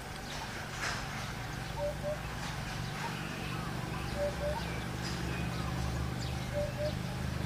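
Birds calling in the background: a short two-note call repeating about every two seconds, with scattered higher chirps, over a low steady hum that grows a little louder in the second half.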